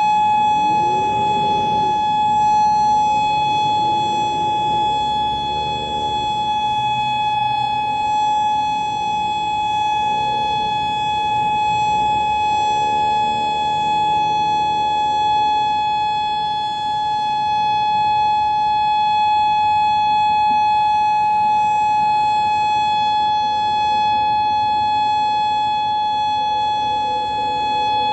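Federal Signal Modulator 4016 outdoor warning siren sounding a loud, steady, unbroken tone during a siren test, its pitch holding level throughout.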